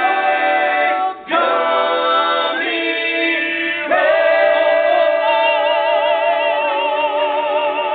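All-male a cappella group singing the closing chords of a pop song in close harmony. The chord changes twice, then settles into one long held final chord with vibrato in the top voice.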